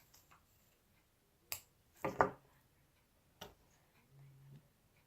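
Plastic Lego bricks clicking and knocking as they are handled and pressed together: a few sharp separate clicks, the loudest cluster about two seconds in.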